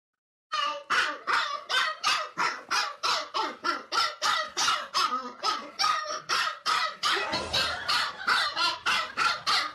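A dog barking in a fast, steady run, about three barks a second.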